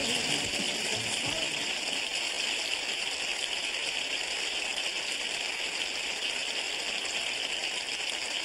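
Studio audience applauding steadily, with the singer's last note and the band dying away just at the start.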